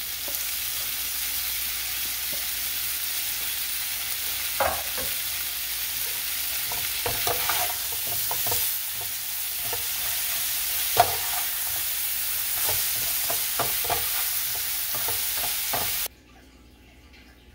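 Shrimp and green onions sizzling in hot oil in a frying pan while a metal spoon stirs them, scraping and clinking against the pan now and then. The sizzle cuts off suddenly near the end.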